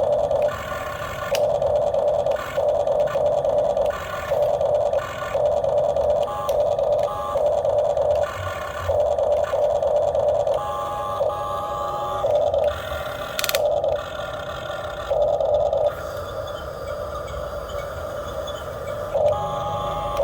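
Small electric motors of a remote-control model excavator whining in repeated bursts of about a second each, starting and stopping as the controls are worked, with a thin higher tone in some bursts.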